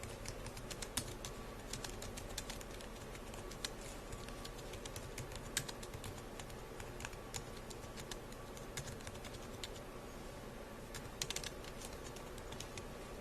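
Typing on a slim Bluetooth keyboard: a steady run of light, irregular key clicks, with a quick burst of louder keystrokes near the end.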